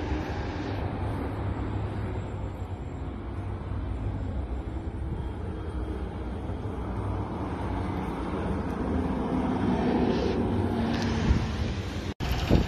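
Road traffic with a heavy truck's engine running, growing louder about ten seconds in. The sound cuts out for an instant near the end.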